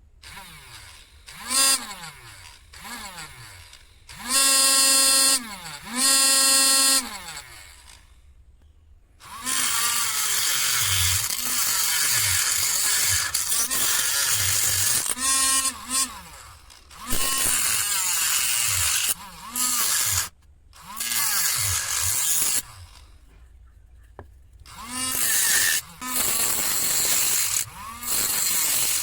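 Homemade angle grinder driven by a small DC motor: switched on in short bursts during the first several seconds, its whine rising and then falling as it spins down. From about nine seconds in, a long series of harsh grinding runs with short pauses as the disc bites into material.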